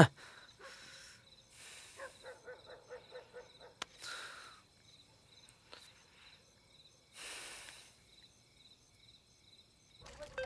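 Night ambience of crickets chirping steadily in a fast, even pattern. A few soft breathy swishes and a short run of quick chirps about two seconds in are heard over it.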